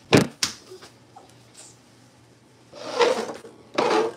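Hard plastic cups handled on a tabletop: two sharp knocks in the first half second, then two short scraping sounds about three and four seconds in.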